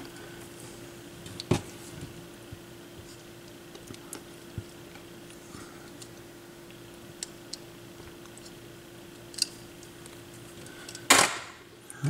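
Faint clicks and ticks of wires and a small hand tool being handled on a workbench, over a steady low hum that stops near the end, with a louder scrape just before it stops.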